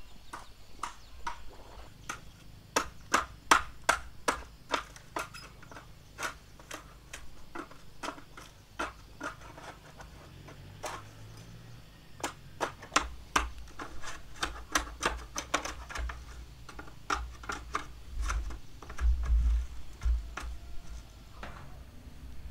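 A long run of sharp, irregular knocks, often two or three a second, coming in bursts with short pauses, and a brief low rumble near the end.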